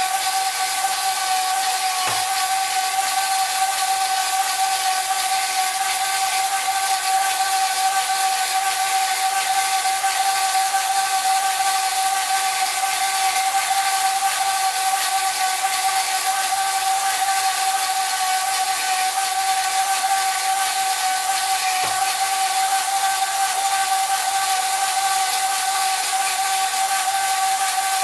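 Small home-built bandsaw running steadily with its blade sawing through a 12 × 20 mm mild steel bar: a steady whine over a hiss. Two faint knocks, about two seconds in and near the end.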